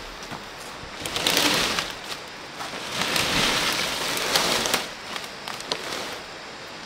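Dry leaves, twigs and fern fronds rustling as undergrowth is pushed through and cleared by hand, with a few small snaps. The rustling comes in two long spells: about a second in, and again from about three to five seconds.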